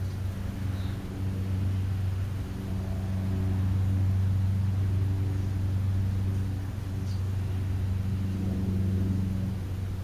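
A steady low mechanical hum with a clear pitch and overtones, swelling slightly in the middle. Two faint short high chirps, about a second in and about seven seconds in.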